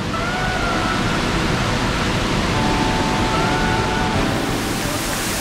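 Steady rush of a waterfall's cascading white water, with faint thin tones rising and holding above it now and then.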